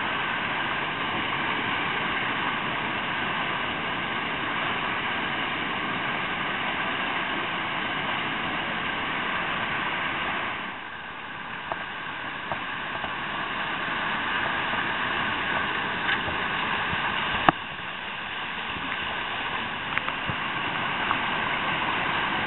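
Whitewater of a river rapid rushing over boulders, heard close to the water as a steady hiss that drops a little about halfway through. There is a sharp knock about two-thirds of the way in, and a few small clicks.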